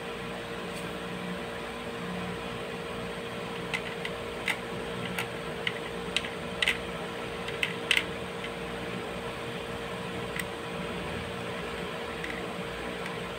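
Steady mechanical hum, like a room fan, with a scattering of light clicks and taps in the middle as a diecast metal and plastic model car is handled and turned over in the fingers.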